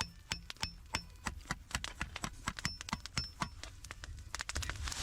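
Thin 22-gauge steel sheet being hammered, a rapid, irregular run of sharp metallic taps, several a second, some with a brief high ring. The edge is being bent over into a lip and its sharp bits knocked off to form a griddle.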